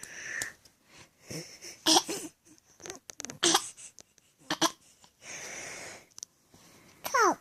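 A young child snoring and breathing noisily in her sleep: irregular short breaths, several with a pitched squeak, a longer breath about five seconds in, and a falling squeak near the end.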